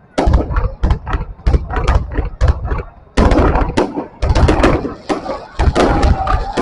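Fireworks going off in quick, irregular succession: a dense string of sharp bangs and booms, thickest about three seconds in.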